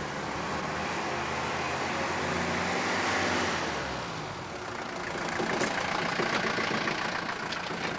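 Older Mercedes-Benz saloon driving along a street: engine and tyre noise rising to a peak about three seconds in, then easing as the car comes on past.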